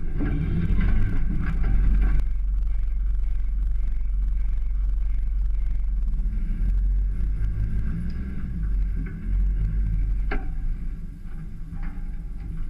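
A Range Rover 4x4's engine running as it drives up a rutted, muddy lane, heard as a steady low rumble. There is one sharp knock about ten seconds in.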